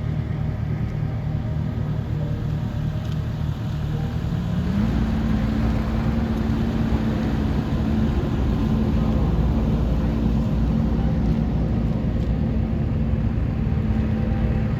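An engine running steadily, then speeding up about five seconds in and holding at the higher speed, with a constant rumbling drone.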